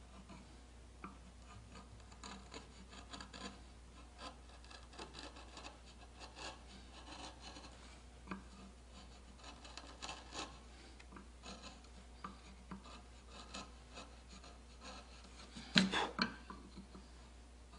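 Hand carving gouge paring the flutes of a carved wooden shell: a run of short scraping cuts, with a brief louder clatter of knocks near the end.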